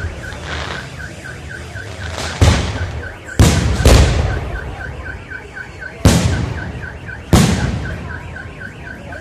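Aerial fireworks shells bursting: five sharp booms, two close together about halfway through, each dying away in a rumbling tail. Under them a high chirp repeats about four times a second without a break.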